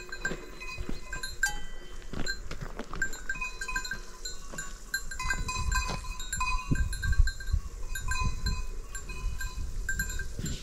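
Bells on grazing goats clinking irregularly, several small bells at different pitches ringing in short, scattered strikes. There is a low rumble in the middle.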